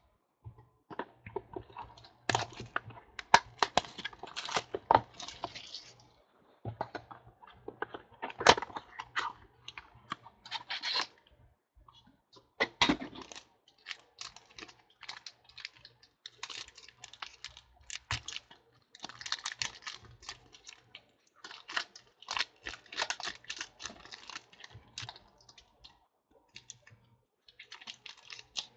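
Trading cards and their packaging being handled up close: irregular sharp clicks and taps mixed with short scratchy slides and rustles, coming in clusters with brief pauses between them.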